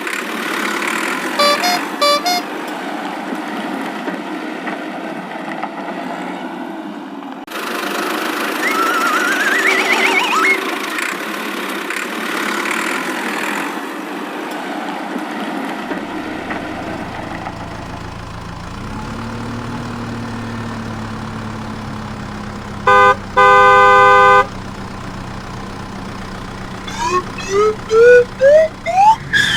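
Cartoon vehicle sound effects: a steady motor sound with quick rising whistle-like glides, a low engine hum joining about halfway, and a horn honking twice, short then longer, late on.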